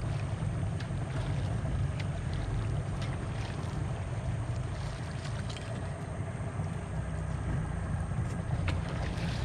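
Small fishing boat under way on the river: a steady low rumble with water rushing past the hull, and a few faint clicks.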